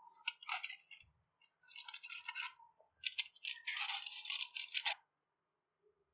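Aluminium foil crinkling and scratching in three short bursts as a pointed tool is pushed through the foil over a cup of ice cream mixture.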